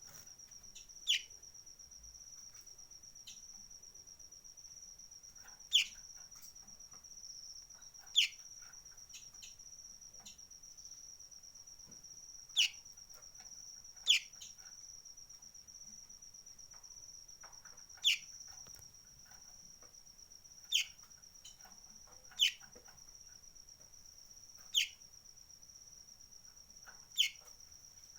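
Kolibri ninja sunbird giving short, sharp calls that slide quickly downward in pitch, about ten of them spaced two to four seconds apart. A steady high-pitched insect-like whine runs underneath.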